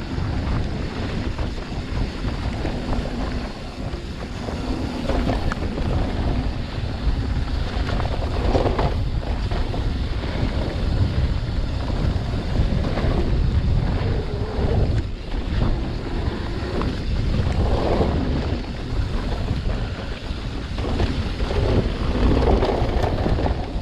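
Wind buffeting the microphone during a mountain bike ride, a loud, steady low rumble that swells and eases unevenly.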